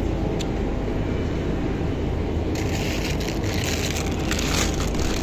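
Plastic produce packaging crinkling and rustling in the hand, starting about two and a half seconds in, over a steady low hum.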